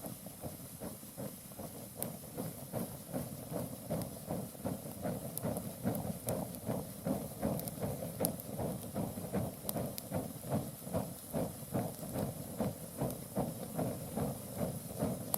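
Mixed-hardwood fire burning: flames fluttering in a rapid pulsing, hissing rush, with scattered sharp crackles and pops.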